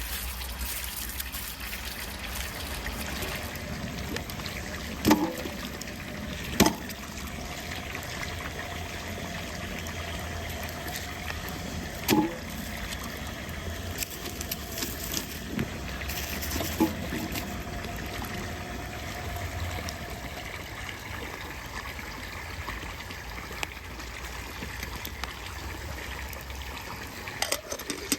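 Water trickling steadily, with a few sharp clicks or knocks now and then.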